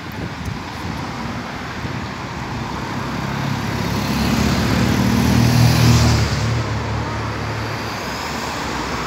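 A motor vehicle passes by, growing louder to a peak about six seconds in and then fading, over a steady hiss of road noise.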